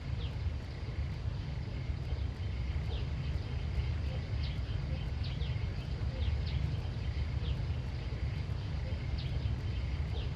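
Outdoor countryside ambience: a steady low rumble of wind or handling on the microphone, with short, high, falling chirps repeating irregularly about once a second over a faint steady high hum.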